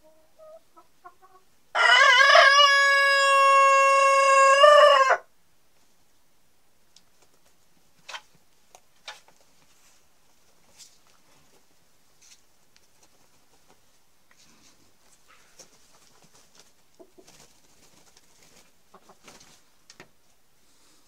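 Denizli rooster crowing once, a loud, evenly held crow of about three and a half seconds starting about two seconds in, after a few soft clucks. Afterwards only faint scattered ticks.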